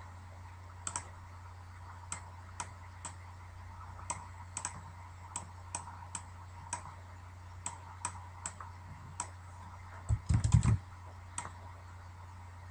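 Computer mouse and keyboard clicks: single sharp clicks every half second or so, with a quick run of louder knocks about ten seconds in. A steady low hum runs underneath.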